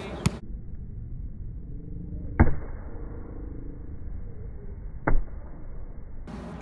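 Two dull thuds of a volleyball being struck, about two and a half seconds apart, the second a little more drawn out. The sound is muffled, with its high end cut off.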